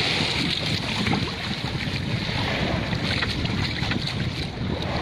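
Wind rumbling on the microphone over sea water splashing and sloshing against the side of a small wooden fishing boat, where a hooked tuna is held in the water alongside.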